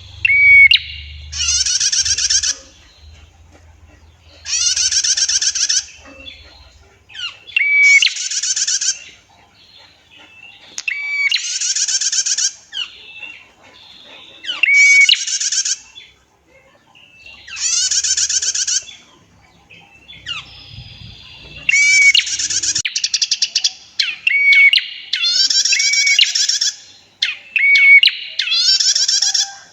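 Female prinia (prenjak) calling: a run of roughly ten long buzzy trills, each about a second long and opening with a short clear note, repeated every two to three seconds.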